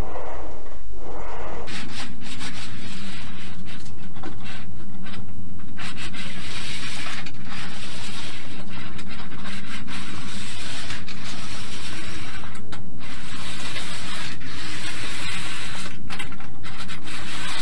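Homemade hand-held roller sheet-metal bender rolling along the edge of a steel sheet, a continuous rubbing, scraping noise of the rollers working the flange as it is folded further over toward 170–180 degrees.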